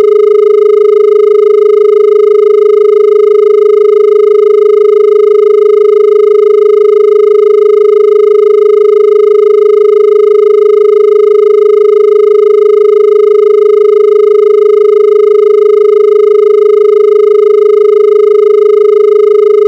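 Indian telephone dial tone: a continuous, unbroken low tone.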